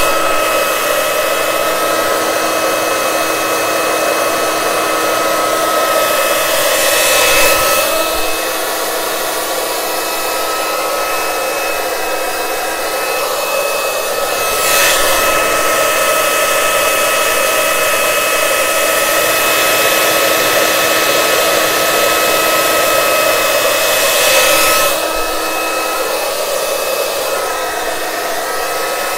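Handleless hair dryer running on high: a steady rush of air with a constant whine. The rush swells briefly three times.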